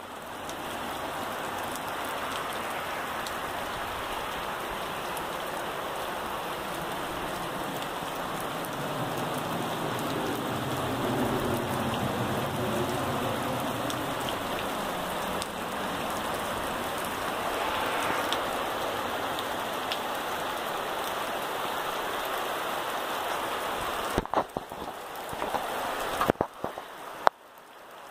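Steady rain falling on wet dirt ground and puddles, a constant even hiss. Near the end it cuts out briefly a few times, with a few sharp knocks.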